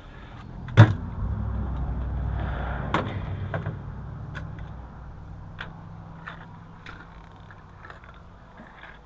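A single sharp knock or slam about a second in, followed by a low rumble that slowly fades away over several seconds, with light scattered clicks.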